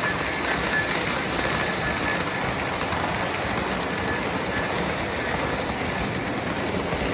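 O-gauge model freight trains rolling past close by on three-rail tubular track: a steady rushing rumble of wheels and motors, with a thin high whine that comes and goes.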